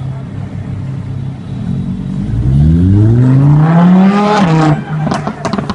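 Lamborghini Huracán's V10 engine accelerating hard, the revs climbing for about two seconds, then lifting off with a short run of exhaust crackles and pops near the end.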